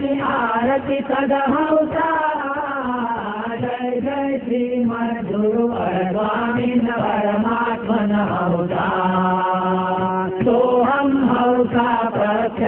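A group of men's voices chanting a devotional song together, with a harmonium; one long note is held about nine seconds in.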